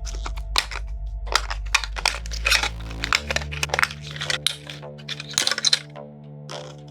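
Many short clicks, taps and rustles of hard 3D-printed plastic boxes being handled and slid apart, over background music with held low notes.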